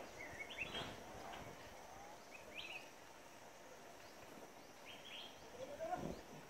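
Quiet outdoor ambience with a few short bird chirps: about a second in, in the middle, and again near the end. Soft low thumps come about a second in and near the end.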